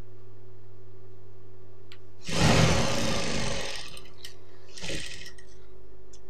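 Industrial sewing machine with its motor humming steadily. About two seconds in it stitches for a little over a second, then runs again briefly near five seconds, with a few light clicks in between.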